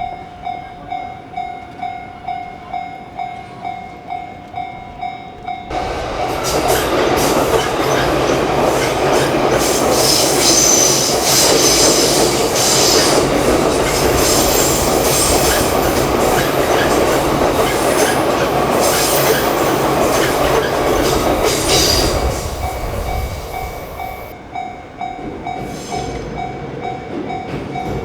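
Japanese level-crossing warning bell clanging its steady 'kan-kan', about two strikes a second. About six seconds in, a train passes, and its wheels and rail noise drown the bell for some sixteen seconds before the bell comes through again near the end.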